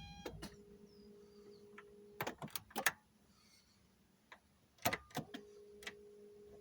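Scattered clicks and knocks over a faint steady electrical hum from the non-starting Volvo 480 Turbo, just after a cranking attempt ends; the hum cuts out for a second or two in the middle.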